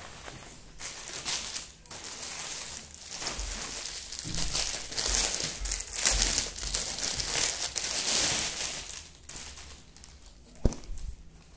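Clear plastic saree packet crinkling and rustling in irregular bursts as it is handled and the saree is pulled out of it. One sharp tap near the end.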